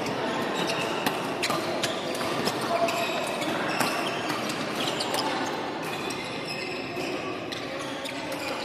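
Badminton rackets striking a shuttlecock in doubles play, sharp smacks about once a second or so, with sneaker squeaks on the wooden court floor and voices from other courts.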